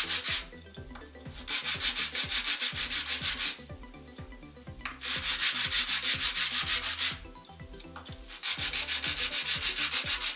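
Edge of a small plexiglas plate rubbed flat on a sheet of 120-grit sandpaper to clean up its edges. Quick back-and-forth strokes, about five a second, come in bursts of about two seconds with short pauses between.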